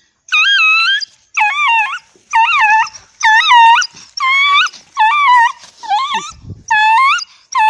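Dog giving a string of high-pitched 'aaUUUU' yowling howls, about one a second, eight in a row, each call dipping and then rising in pitch.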